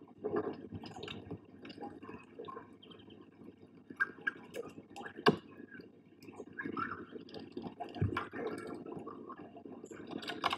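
Long-tailed tits bathing in a shallow dish of water: irregular bursts of splashing and dripping as they flutter and dip, with one sharp click about five seconds in.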